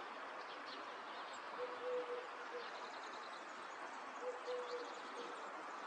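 A dove cooing: a low, hollow call given twice in short phrases of two or three notes, about two and a half seconds apart, over a steady background hum, with faint high bird chirps.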